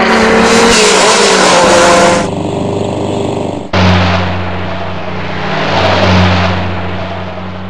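Dubbed engine sound effects: a race car engine revving as it drives past, cut off abruptly about two seconds in. About a second and a half later a heavy truck engine comes in abruptly and runs with a steady low drone, swelling about six seconds in.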